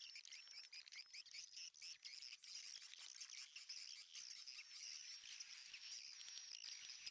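Faint, dense twittering of many swiftlets, short chirps overlapping without a break, with scattered sharp clicks among them.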